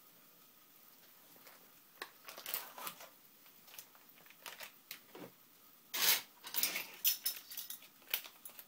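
Short scrapes, rustles and light clicks of a spice jar and metal measuring spoon being handled, with a cluster of louder ones about six seconds in.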